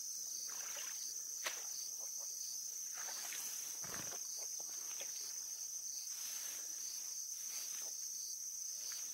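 Steady high-pitched chorus of insects, with a faint sharp click about a second and a half in and a faint low thump about four seconds in.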